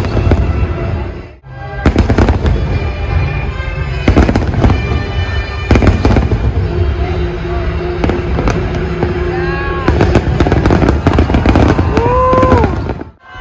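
Aerial fireworks bursting in rapid, irregular bangs over music with held notes. The bangs drop away briefly about a second in and again just before the end.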